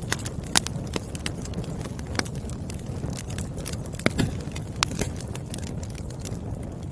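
Burning firewood crackling: irregular sharp pops and snaps over a steady low rumble of the fire.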